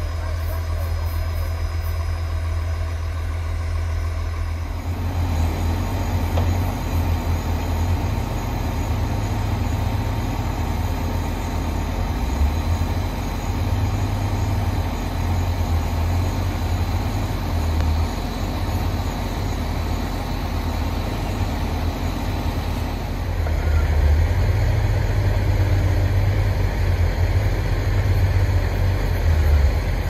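Heavy diesel engine of a logging vehicle running with a steady low drone; it grows louder and rougher about five seconds in and again a few seconds before the end.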